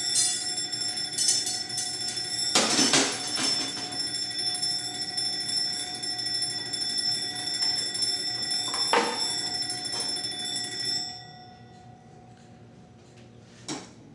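Alarm clock bell ringing steadily, with loud knocks of handling about three seconds in and again near nine seconds. The ringing cuts off about eleven seconds in.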